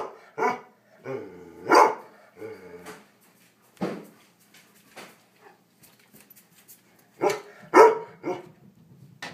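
A dog barking in short single barks and quick pairs, about ten in all, with a pause of about two seconds in the middle.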